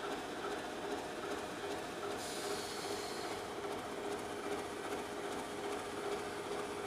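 ČD class 749 diesel locomotive standing with its engine running steadily, giving a constant hum with a steady whine. A hiss joins about two seconds in.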